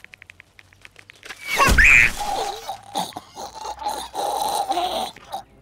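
Cartoon sound effects: a quick run of creaking ticks as a bow is drawn, then a loud whoosh ending in a deep thud about a second and a half in as an arrow strikes. A steady, wavering high squeal follows for about three seconds.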